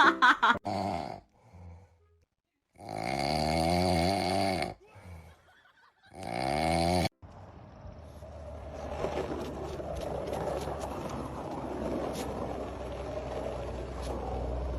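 A pet snoring: two long snores with a wavering pitch, about three and six seconds in, followed by a steady rushing background with scattered clicks.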